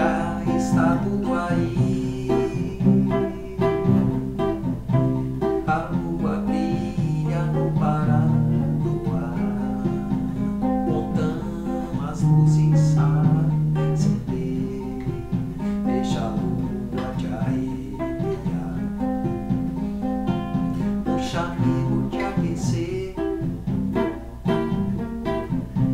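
Yamaha GL1 guitalele, plugged in, strummed and plucked in a samba-bossa rhythm over a light drum-machine beat, with a man's singing voice at times.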